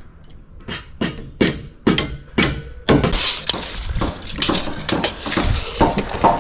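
Hammer blows driving nails into timber joists by hand, a steady run of sharp strikes at about two a second, then busier, overlapping knocks in the second half.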